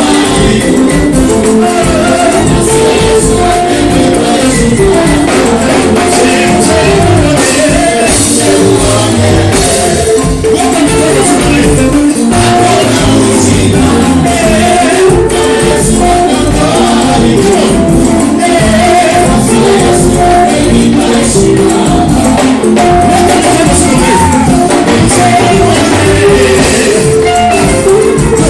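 Live church worship music: a band playing an upbeat song with tambourine, loud and steady throughout.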